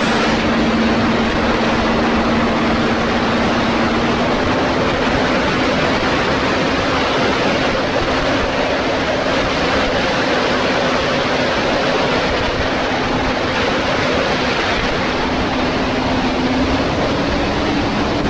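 Performance boat's engines droning steadily at cruising speed, with rushing water and heavy wind buffeting on the microphone. The drone shifts slightly in pitch about four seconds in.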